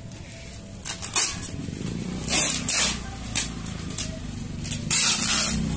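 Repeated short bursts of hissing, the longest and loudest about five seconds in, over a steady low engine hum that sets in about two seconds in.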